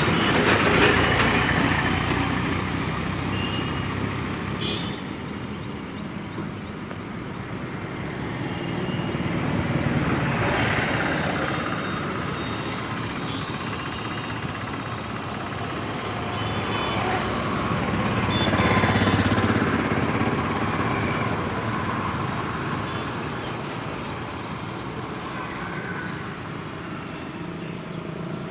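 Road traffic passing close by: motorcycles and other vehicles going past one after another, the noise swelling as each one passes, loudest near the start, about a third of the way in and about two thirds of the way in.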